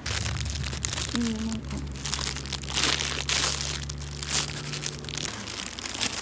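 Thin plastic produce bags crinkling in irregular bursts as bagged vegetables are picked up and handled, over a steady low hum that stops near the end.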